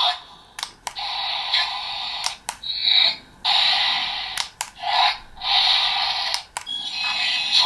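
Electronic battle sound effects played through the small speaker of the SSSS.Gridman Primal Accepter toy bracelet. They come as a run of hissing noise bursts, each about a second long, with short gaps and a few sharp clicks between them.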